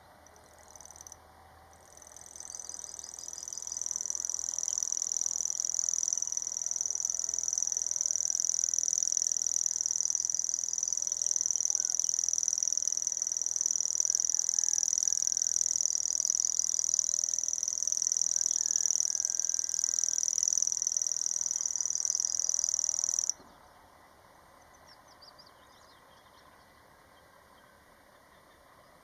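House cricket (the 'common cricket') singing: a high-pitched, steady stridulating song that swells up over the first few seconds after a brief opening chirp, then cuts off abruptly about 23 seconds in, with only a few faint chirps after.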